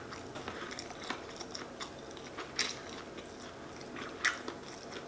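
A person chewing a mouthful of shrimp po' boy sandwich: soft, wet mouth clicks and smacks, with two louder ones about halfway through and near the end.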